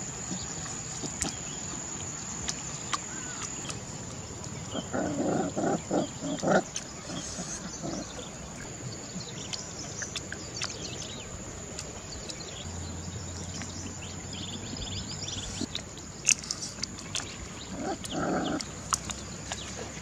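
Puppy growling and chewing while eating scraps, in two short rough bouts over a steady background hiss.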